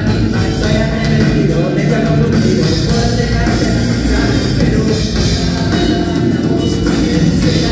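Live rock band playing loud and steady: electric guitars, bass and drum kit.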